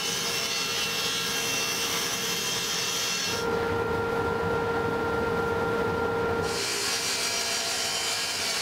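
Power saws cutting plywood: a table saw, then a Ridgid sliding miter saw, running steadily. The sound changes about three and a half seconds in to a duller tone with a steady hum, and turns brighter again about three seconds later.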